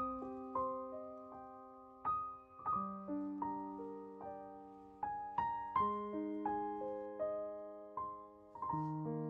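Background music: an unhurried solo piano melody over soft chords, each note struck and then fading.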